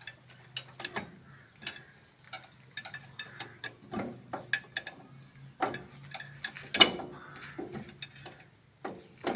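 Irregular metal clicks and clinks of hand work on the rear brake assembly of a Massey Ferguson 241 DI tractor, with one sharper knock about seven seconds in.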